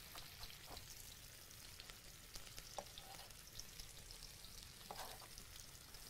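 Onions and garlic sizzling faintly in hot oil in a wok, with scattered light clicks as they are stirred.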